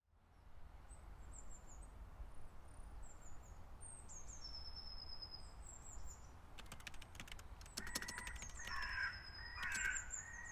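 Quiet outdoor birdsong: small birds chirping high and thin, with a crow cawing twice near the end over a low steady rumble. From the middle on there is a run of faint clicks.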